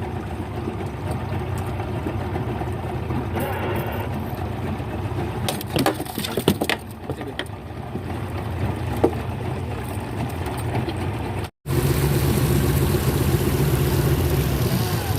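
A boat's outboard motor running steadily, with a few knocks and clatters on the boat around six seconds in. After a brief cut near the end the motor is louder.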